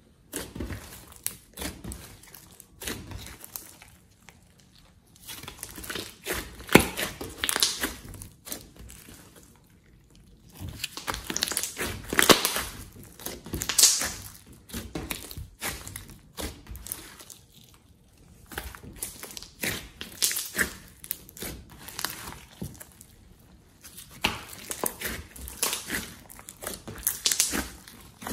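Hands poking, pressing and stretching a large glossy slime mixed with clay and glitter, giving sticky crackling and clicking sounds in irregular bursts with short quieter pauses.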